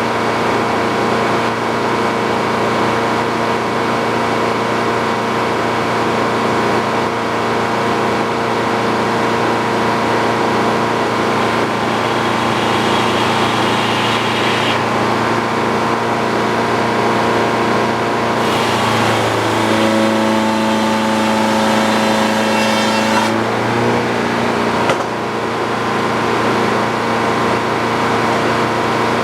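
Sawmill engine running steadily. For about four seconds past the middle its pitch shifts and a hiss joins it, then it settles back.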